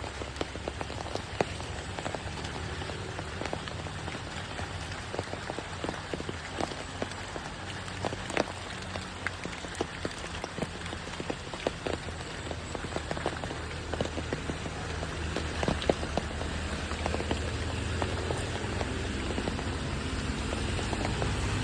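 Steady rain falling, with many distinct drop hits over an even hiss. A low rumble underneath grows louder toward the end.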